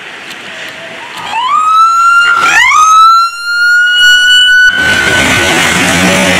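Ambulance siren sweeping up in pitch twice and holding its high note, then cutting off abruptly; a loud rushing noise follows as the truck passes close on the wet road.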